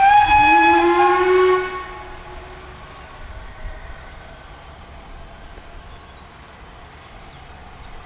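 Steam locomotive whistle blowing for under two seconds from a departing train: a high note, and a lower one that rises slightly and lingers a moment longer. Then only the faint sound of the train fading away.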